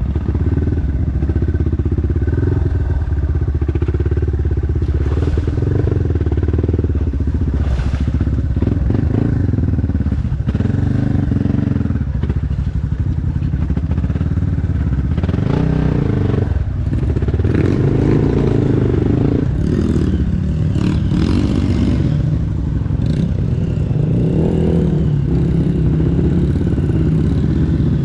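Dirt bike engine running on a rough off-road trail, the throttle rising and falling, with clattering knocks from the bike over bumps.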